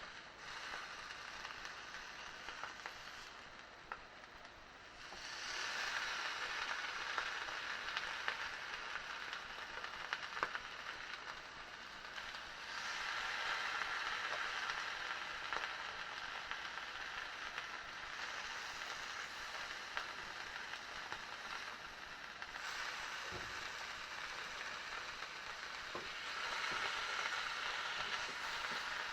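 Slices of halloumi frying in a large frying pan with a little sprayed oil: a steady sizzle with a few pops, growing louder about five seconds in and swelling again in stretches.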